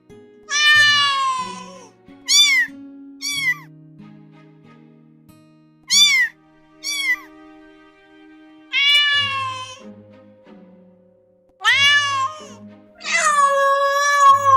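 Domestic cat meowing repeatedly over soft background music: long drawn-out meows alternate with pairs of short, quick ones. There are about eight meows in all, and the last is the longest.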